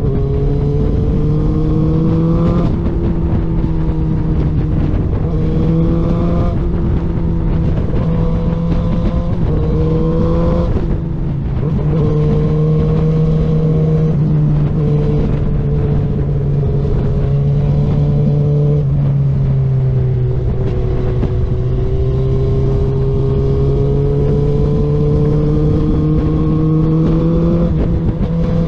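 Suzuki GSX-R750's inline-four engine running under way, its note climbing and dropping back several times as the throttle is worked through the bends, over steady wind rush.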